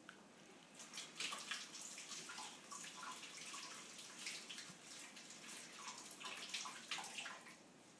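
Kitchen sink tap running while hands are washed under it, the water splashing unevenly. It comes on about a second in and stops shortly before the end.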